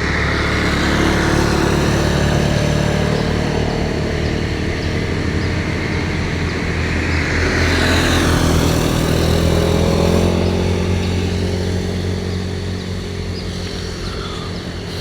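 Road traffic passing on a highway bend: engines running steadily, with one vehicle passing loudest about eight to ten seconds in, then the traffic fading away. No horn sounds.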